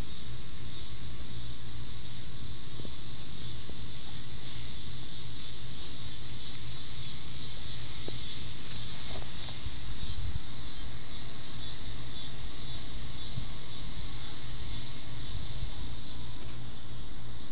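Insects chirping in a steady, high, pulsing chorus, over a low rumble.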